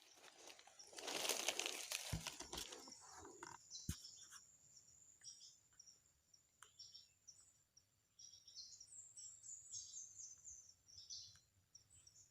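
Faint rustling and a few light knocks in the first few seconds, then a quick run of short, high bird chirps near the end, over a thin steady high tone.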